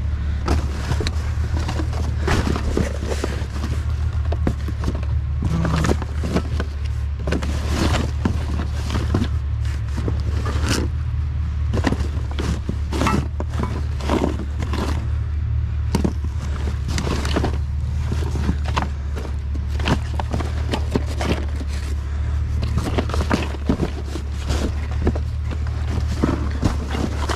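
Irregular rustling, scraping and knocking of clothing and gear being rummaged through and pulled out of a dumpster, over a steady low hum.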